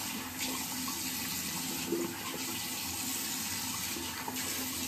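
Water running steadily from a tap into a bathroom sink.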